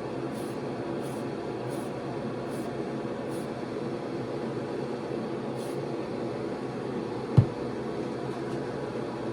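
Ventilation fan running with a steady whooshing hum. Faint short hisses come at regular spacing in the first few seconds, and a single dull thump comes about seven seconds in.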